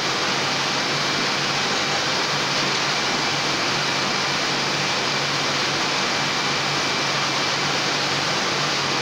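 Heidelberg Speedmaster SM 74 sheetfed offset printing press running: a steady mechanical hiss with a thin high whine and a low hum.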